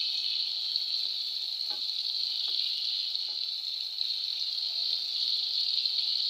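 Fish pieces and masala sizzling steadily in hot oil in an aluminium pot, with a few faint taps of a wooden spatula as they are stirred.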